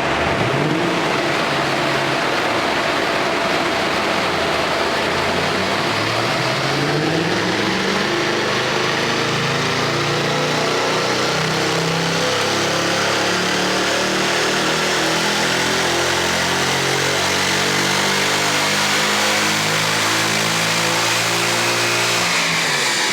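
Mercedes E63 AMG twin-turbo V8 with an IPE exhaust, on a long full-throttle pull: the engine note climbs steadily for about fifteen seconds, then drops away near the end as the throttle is released.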